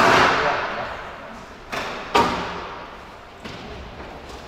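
Squash ball hits in a rally, sharp strikes that echo around the court: a loud one at the start, two close together about two seconds in, and a fainter one near the end.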